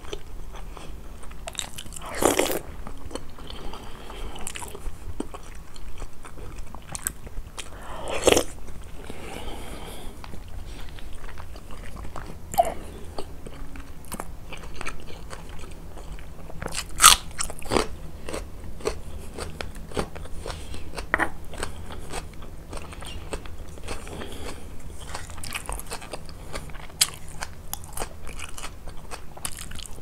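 Close-miked eating: sharp, crisp crunches of biting into raw onion every few seconds, with chewing in between. The loudest crunch comes a little past halfway.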